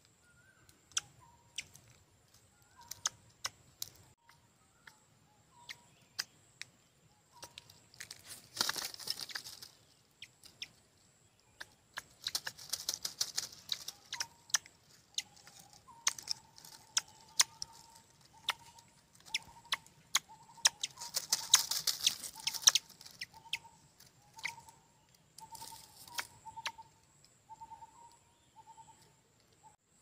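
Hawk chicks and a rufous treepie at a nest: several bursts of wing flapping and rustling in the twigs and straw, scattered sharp clicks, and, from about halfway, a run of short, clipped bird calls all at one pitch.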